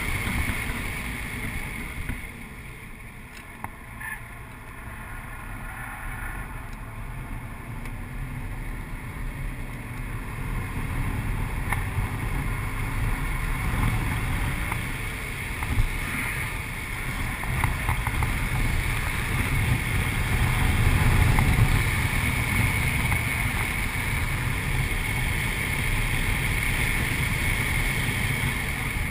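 2008 Audi RS4's 4.2-litre V8 running hard on track, heard from inside the cabin with wind and road noise. The sound eases off a few seconds in, then builds back up as the car accelerates, loudest about two-thirds of the way through.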